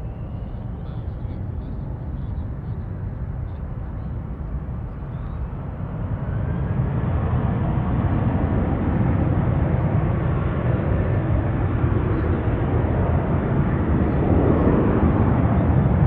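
Airbus A330 freighter's twin jet engines spooling up on the runway for takeoff: a low rumble that grows louder about six seconds in and again near the end, with a faint rising whine as the power comes up.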